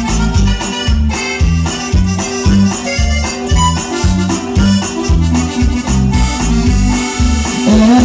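Live norteño-style band playing an instrumental passage: accordion leading over a bouncing bass line and a steady dance beat.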